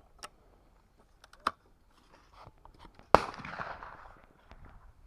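A single shotgun shot about three seconds in, with a long echoing tail, preceded by a few faint clicks.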